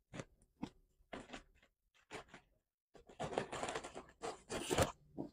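Plastic packaging handled and torn open by hand: a few scattered crackles, then a denser stretch of crinkling and tearing plastic from about three seconds in.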